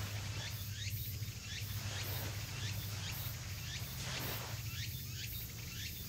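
Outdoor ambience: a steady low hum under a rushing noise that swells and fades, with several short falling bird chirps and a high insect buzz pulsing in regular beats.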